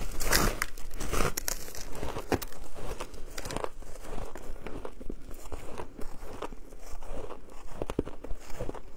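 Packed shaved ice being bitten and chewed: a dense run of icy crunches in the first second or so as teeth break into the frozen block, then scattered crunches as small pieces are chewed.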